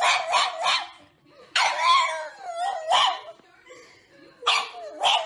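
A black pug barking and howling in three bouts, its pitch wavering up and down within each bout.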